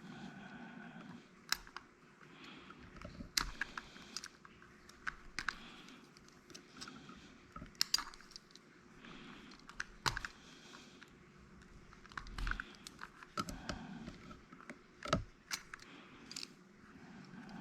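Scattered sharp clicks and light rustling as a cutting tool strips the insulation off thin battery lead wires and they are handled.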